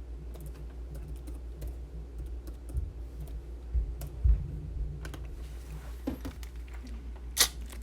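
Typing on a computer keyboard: scattered, irregular key clicks over a steady low hum, with one sharper click near the end.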